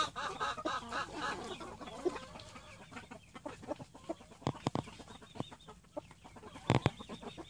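White Silkie chickens clucking in a quick run of short notes, then pecking and tearing at napa cabbage leaves with scattered sharp, crisp snaps, a few louder ones near the middle and near the end.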